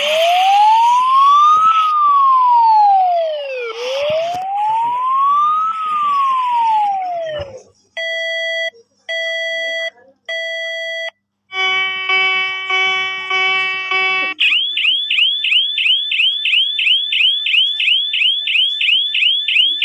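Emergency Alert System-style electronic alarm sequence: a siren wail rises and falls twice, then three short beeps, then a steady buzzing tone lasting about three seconds, then rapid rising chirps, about three a second.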